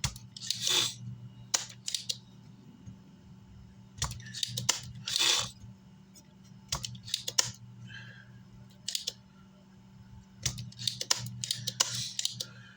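Scattered small clicks, taps and short scraping rustles of hands and tools working on an amplifier circuit board at a repair bench, over a steady low hum.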